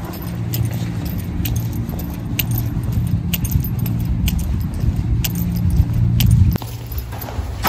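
Walking in the open: wind rumbles low on the microphone, with a light metallic clink about once a step, likely keys or bag hardware swinging. The rumble cuts off suddenly near the end.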